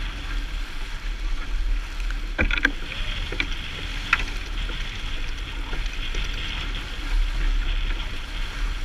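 Small sailboat under way in choppy water: a steady rush of water along the hull with wind rumbling on the microphone, and a few sharp clicks about two and a half and four seconds in.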